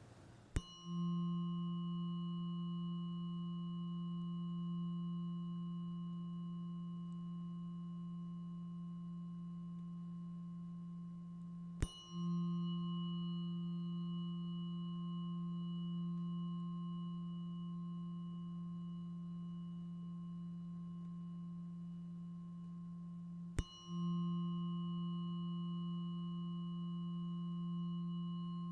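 Crown chakra chime struck three times, about twelve seconds apart, each strike ringing on as a steady low hum with fainter higher overtones that slowly fade.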